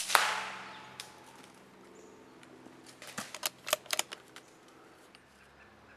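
A single suppressed rifle shot: one sharp crack with a short echoing tail that fades over about a second. About three seconds later comes a quick run of sharp clicks and rattles.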